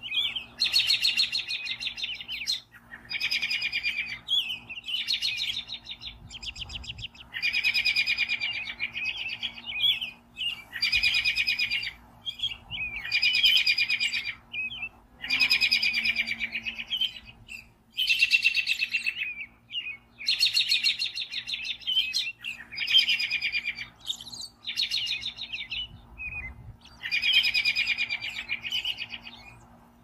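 American robin singing in short phrases about a second long, each a quick run of notes, repeated every one to two seconds with brief pauses between.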